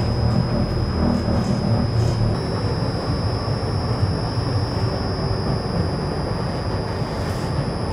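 Steady rumble of a tram running along its rails, heard from inside the passenger cabin, with a thin steady high whine over it.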